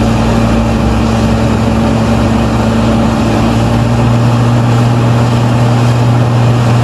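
Heavy diesel engine of earthmoving machinery running steadily, a loud, even drone with a deeper rumble that fades out about four seconds in. The sound cuts off abruptly at the very end.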